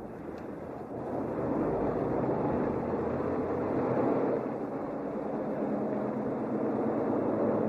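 Diesel garbage truck driving closer, its engine and rumble growing louder over the first two seconds and then running steadily with a low engine hum underneath.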